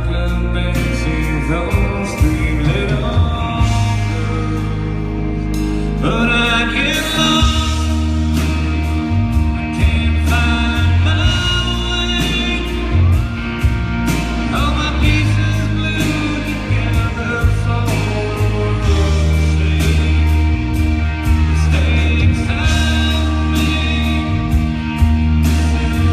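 A live rock band playing at full volume: bass, drums with regular cymbal strikes, and guitars carrying a line that bends in pitch.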